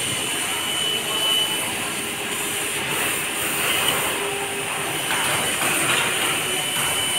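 Fiber laser cutting machine cutting metal plate: a steady hissing rush from the cutting head and machine, with brief high tones now and then.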